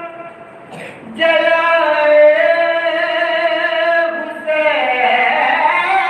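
Young man's voice chanting a soz (unaccompanied Shia mourning chant) into a microphone in long held notes, with a short pause for breath about a second in and a wavering, ornamented line from about four and a half seconds in.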